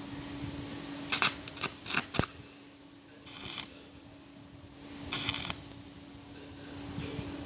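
Scattered metallic clicks and clinks, with two short bursts of hiss later on, over a steady low hum.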